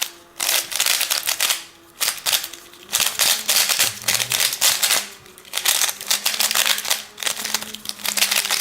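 A GAN-made Rubik's Speed Cube being turned fast by hand: quick runs of plastic layer clicks and clacks in several bursts with short pauses, the cube's first turns out of the box.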